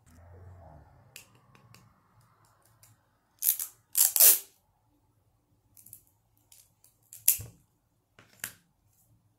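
Sticky tape pulled off a roll in two short, loud rips about three and a half and four seconds in, followed by a few lighter clicks and crackles as the tape is handled.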